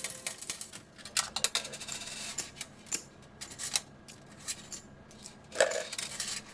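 Casino ambience without voices: a busy patter of small clicks and clinks, with a louder clatter about five and a half seconds in.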